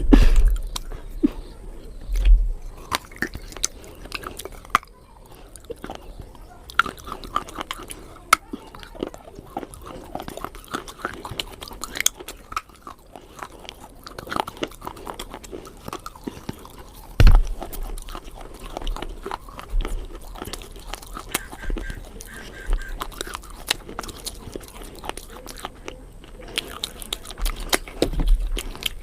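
Close-miked eating sounds of someone chewing bananas: irregular wet mouth clicks and chewing. There is one louder thump about 17 seconds in.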